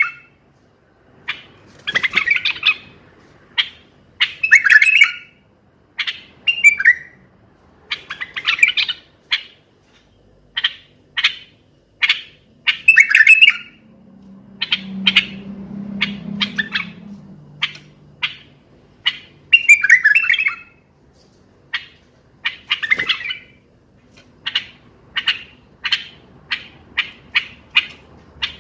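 Common bulbul singing: short whistled notes and warbled phrases, one after another every second or so, with brief pauses between them.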